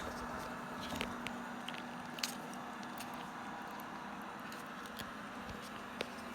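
Norwegian Forest cats licking churu treat paste from a spoon: scattered small wet clicks and smacks over a steady low hum.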